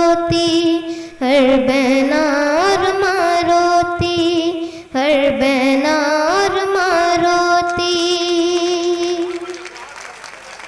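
A boy's voice singing through a microphone: three long drawn-out phrases that each climb and then hold a note with vibrato, fading away near the end.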